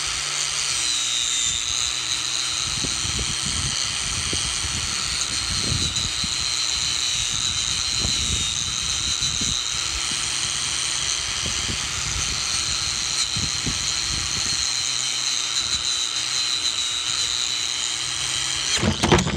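Electric angle grinder running steadily with a wire cup brush scrubbing rust off a truck's steel front wheel hub: a high motor whine over the rasping scrape of the wire on metal. A few loud knocks and clatters near the end.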